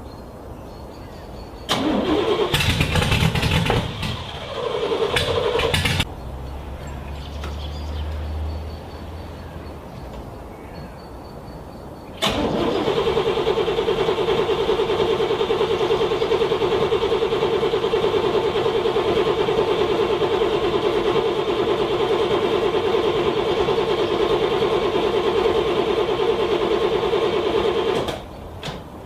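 Car starter motor cranking a cold engine that does not start: a short, broken burst of cranking about two seconds in, then one long, steady crank of about fifteen seconds that stops suddenly without the engine catching.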